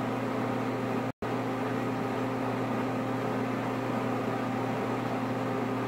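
Steady electrical or mechanical hum with a low drone and a hiss over it; the sound drops out completely for an instant about a second in.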